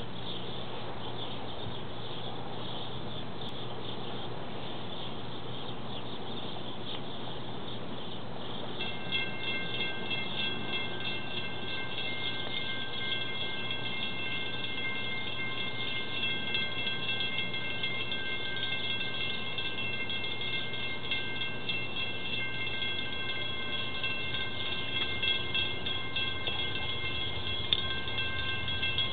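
Railroad grade-crossing warning bell starts ringing about nine seconds in and keeps ringing steadily, a cluster of high metallic tones, as the crossing is activated for an approaching train. A steady low hum lies underneath.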